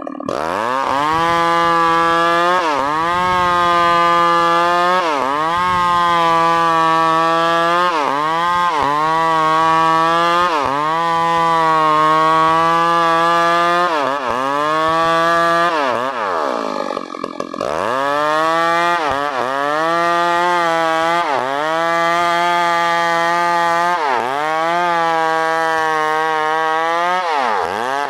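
New West PRO 888 two-stroke chainsaw running at high revs while sawing wood. Its pitch sags and recovers about every second or so, and drops further once near the middle before climbing back.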